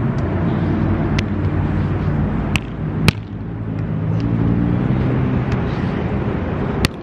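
Sharp slaps of a volleyball being hit during a rally, several times, the loudest about three seconds in and just before the end, over a steady low hum.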